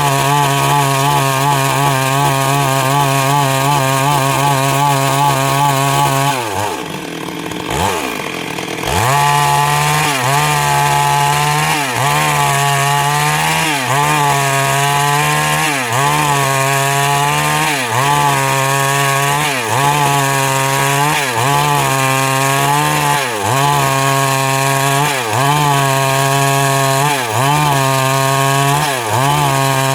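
Stihl MS 382 two-stroke chainsaw cutting wood at high revs. About six seconds in the engine note drops away for two or three seconds, then climbs back up. After that the pitch dips briefly about every two seconds and recovers each time.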